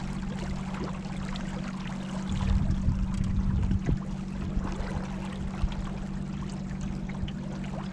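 Water splashing and trickling along a moving kayak's hull, over a steady low hum. About two seconds in, a stretch of louder low rumbling lasts a second or two.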